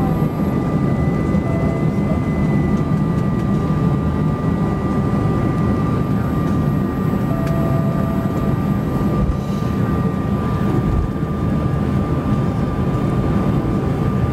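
Airbus A320 cabin noise while taxiing, heard beside the wing-mounted jet engine: a steady low rumble with a constant high engine whine.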